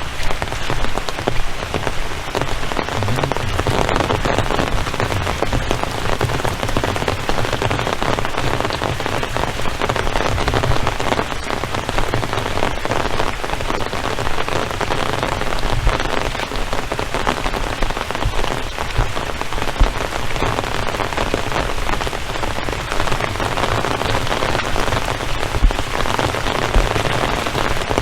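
Steady rain falling: a dense, continuous patter of drops with many small ticks.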